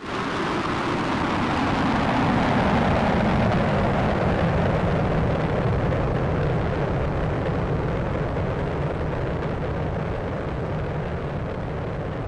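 McDonnell Douglas F/A-18 Hornet flying by. A loud jet roar comes in abruptly and peaks a couple of seconds in. Its pitch then falls steadily as the jet passes, and it slowly fades.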